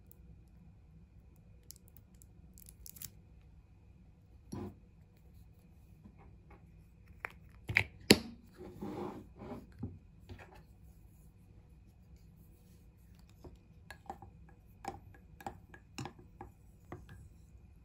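Quiet handling of a plastic squeeze bottle of honey, with a sharp snap about halfway through as its cap is closed. Near the end, a wooden stir stick knocks lightly against a ceramic mug in a run of small taps.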